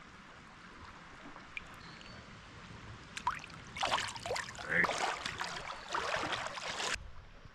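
Water splashing as a brown trout is let go from a hand into shallow river water. The splashing is irregular, starts about three seconds in and stops abruptly near the end.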